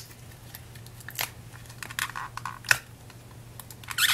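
Fingers working at a stubborn small packaging box, trying to get it open: scattered sharp clicks and scrapes of the packaging, with a longer crinkly scrape near the end.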